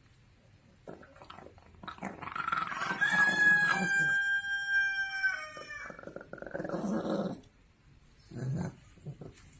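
Dog growling while guarding food from a puppy. The growl swells into a long, high, steady whine lasting a couple of seconds, dipping at the end, then breaks into two more short growls.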